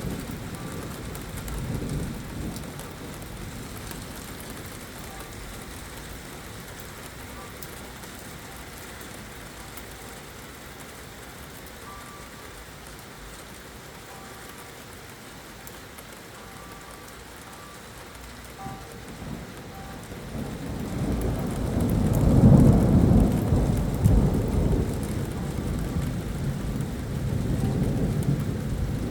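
Steady rain falling, with a long low rumble of thunder that builds about two-thirds of the way through, peaks and rolls on to the end.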